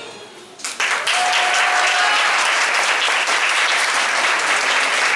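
The last of the music dies away, then a little under a second in an audience breaks suddenly into applause that keeps going at a steady level.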